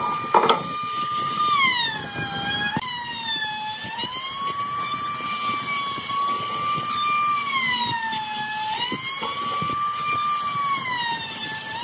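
Handheld electric trim router running, its high whine sagging in pitch as the bit bites into the wooden frame and climbing back as the load eases, several times over. A knock about half a second in.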